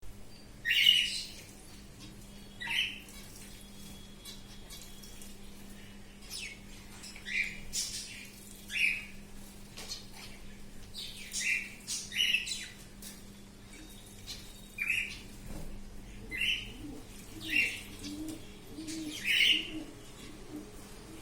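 Small finches bathing: about a dozen short bursts of splashing and wing-fluttering in the water, coming irregularly about a second apart, with some chirping.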